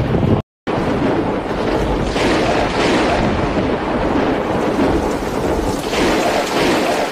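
Thunderstorm: a continuous low rumble of rolling thunder with a noisy hiss over it. A brief dropout to silence about half a second in.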